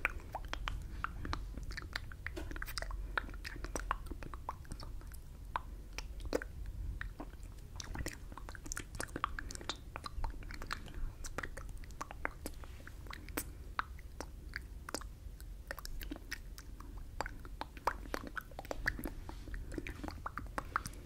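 Close-miked ASMR mouth sounds: wet lip and tongue clicks and smacks from words mouthed without voice (the 'fishbowl effect'), an irregular patter of many small clicks.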